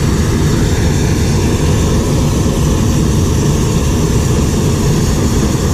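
Hot air balloon's twin propane burner firing in one long, steady blast of flame, a loud deep rushing noise.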